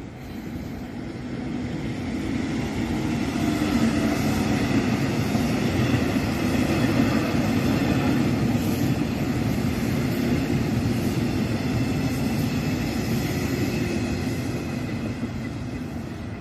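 EMU1200 electric multiple unit train passing: a rumble with a steady whine that swells over the first few seconds, holds, then slowly fades.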